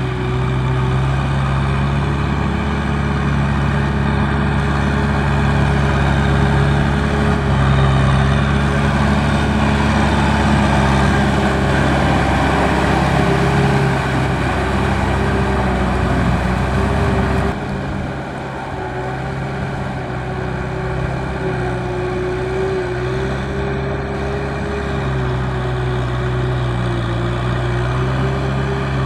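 Kubota M6040 tractor's four-cylinder diesel engine running steadily under load as it hauls a loaded trailer through mud. The sound changes abruptly about two-thirds of the way through, becoming a little quieter and thinner in the bass, then runs on.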